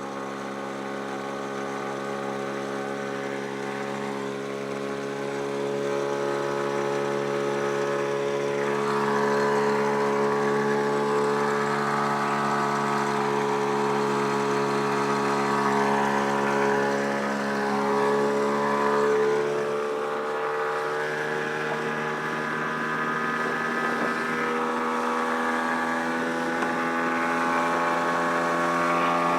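Daihatsu 9.8 hp two-stroke outboard motor running hard, pushing the small boat at speed. Its steady drone builds over the first several seconds and then holds, with a slight change in tone about two-thirds of the way through.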